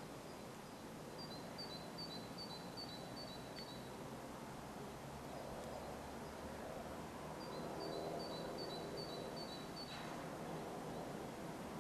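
Faint low drone of two GE C36-7i diesel locomotives approaching, growing slowly louder. A small bird twice sings a quick run of high, repeated two-note calls.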